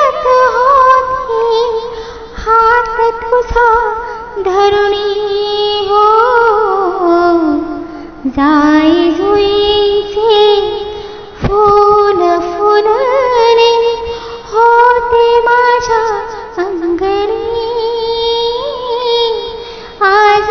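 A woman singing a Marathi mangalashtak, the verse of blessing sung at a wedding, in sustained melodic phrases a few seconds long with short pauses between them.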